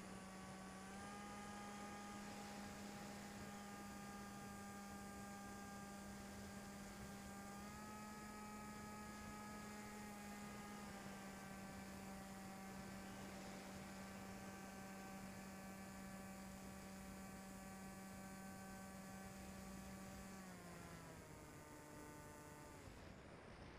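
Small RC plane's electric motor and propeller, picked up by a camera mounted on the plane, making a steady hum. The pitch steps up slightly twice and down once with the throttle, then drops near the end as the throttle is eased back.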